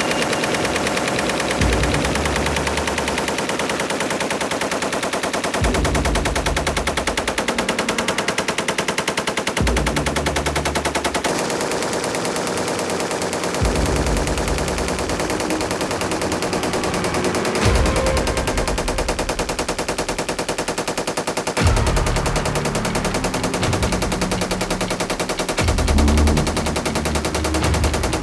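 SAR 762 MT 7.62 mm machine gun firing long, sustained automatic bursts, shots following one another rapidly and evenly throughout, with the sound's low end changing every few seconds.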